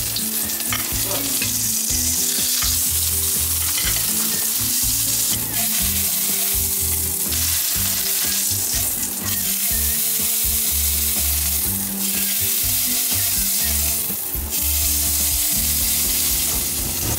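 Salmon fillets sizzling as they pan-fry in butter and garlic in a hot pan, a steady frying hiss.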